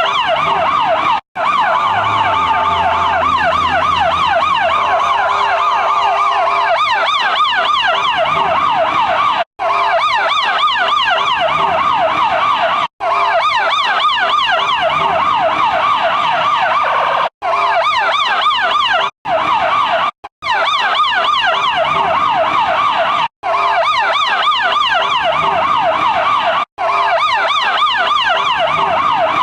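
Electronic siren (Federal Signal eQ2B) sounding fast yelp- and phaser-type tones, rising and falling several times a second. The sound cuts out briefly about eight times as the siren is switched off and on again or changed between tones.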